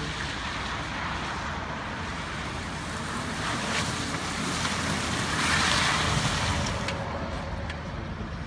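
BMW F01 7 Series driving on a wet road: a steady low engine hum under a rushing hiss of tyres on water. The hiss swells for about a second, around five and a half seconds in.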